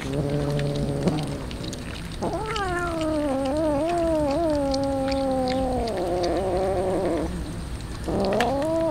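A cat yowling: a short low call at the start, then one long wavering yowl of about five seconds from about two seconds in, and another yowl rising near the end. Faint clicks of cats eating raw tuna off a metal tray.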